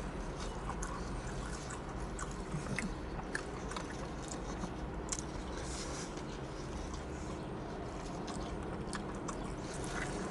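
A person chewing a mouthful of Philly cheesesteak sandwich, with scattered soft mouth clicks over a steady low background hum.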